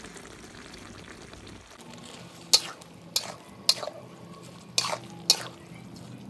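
Metal spatula scraping and knocking against a wok while saucy rice vermicelli and greens are stirred. The five sharp clanks start about two and a half seconds in, over a low, steady simmering hiss.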